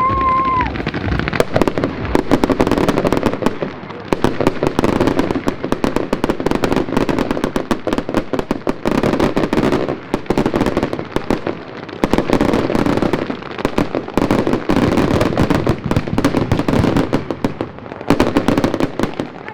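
Many fireworks and firecrackers going off at once in a dense, continuous crackle of rapid cracks and bangs, thinning for a moment a few times.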